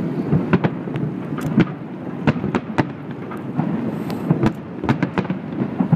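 Aerial fireworks shells bursting: many sharp, irregular bangs, several a second, over a continuous low rumble of the barrage echoing across the harbour.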